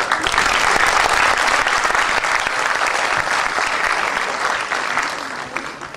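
Theatre audience applauding, dying away near the end.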